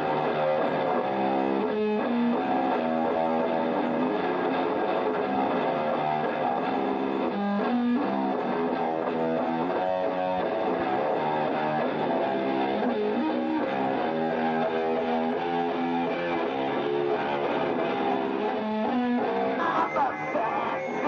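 Instrumental music, with a guitar playing held notes and chords that change every second or so.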